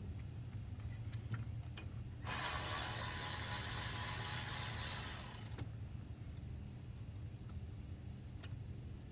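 Ratchet and hand tools clicking while parts are worked on an engine, over a steady low hum. About two seconds in, a loud hiss lasts about three seconds.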